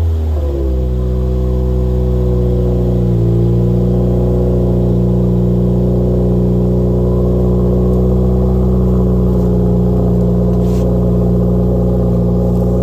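2020 Subaru WRX's turbocharged flat-four engine idling through the quad exhaust tips shortly after a cold start. The revs fall off in the first second and then hold a steady idle.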